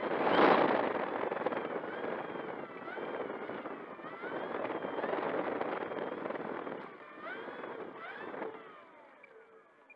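Brushless electric motor and propeller of an E-flite Air Tractor 1.5m RC plane running up as it taxis, heard close up from the nose: a loud propeller whoosh with a motor whine that rises and falls with the throttle. The sound dies away near the end.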